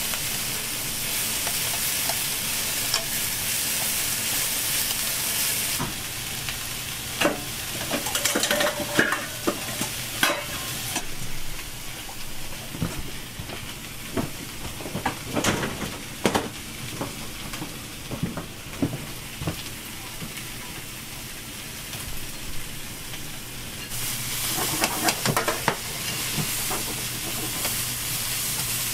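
Sliced cabbage and onion sizzling in a frying pan as they are stir-fried and tossed with long wooden chopsticks. The sizzle is strong for the first few seconds, eases off in the middle where sharp clicks and knocks stand out, and comes back strongly near the end.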